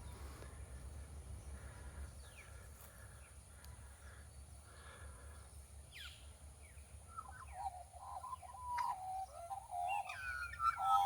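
Australian magpie singing: faint scattered calls at first, then from about seven seconds in a loud run of warbling, yodelling notes. A steady low rumble runs underneath.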